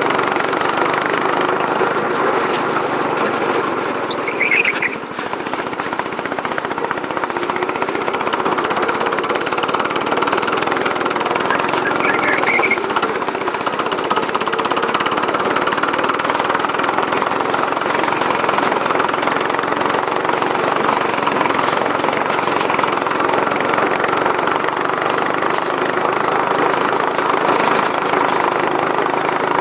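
Go-kart engine running steadily while the kart is driven around the track, heard from the driver's seat. It dips briefly about five seconds in, and a few short high squeaks show up once or twice.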